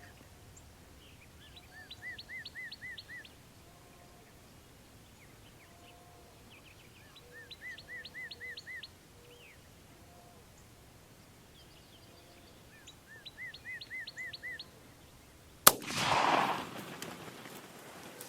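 A songbird repeats the same short phrase of five or six quick notes three times. Near the end comes a single loud crack with about a second of rumbling noise after it, a shotgun shot at a jake turkey.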